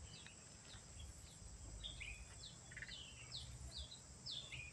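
Faint bird calls: a string of short, high chirps, each sliding down in pitch, coming two or three a second.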